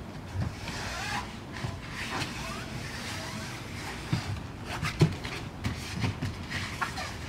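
Soft thumps and shuffles of bare feet and bodies on foam floor mats, coming irregularly about a second apart with the loudest about five seconds in, over a steady outdoor background.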